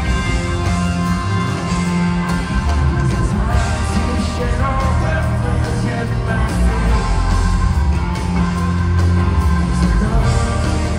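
Rock band playing live through an arena PA: electric guitars, bass and drums, heard from among the crowd.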